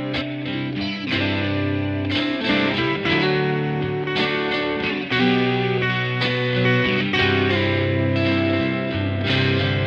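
Background music led by an electric guitar with effects, notes struck at a steady pace.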